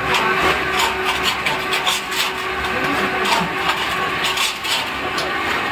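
Electric pan mixer running, its rotating blades churning a lime mortar mix, with a low rumble, a steady hum and frequent irregular gritty scrapes and clacks.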